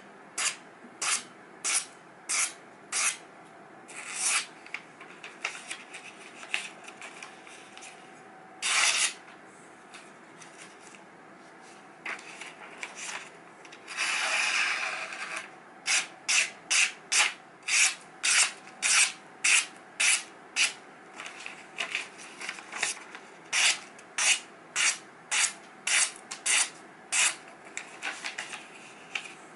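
Freshly sharpened knife blades, a cleaver and a smaller knife, slicing through a glossy magazine page in a paper-cutting sharpness test. The result is a run of short, crisp slicing strokes, about one or two a second, thinning out for a while in the middle. Now and then there is a longer rustle as the page is handled or folded.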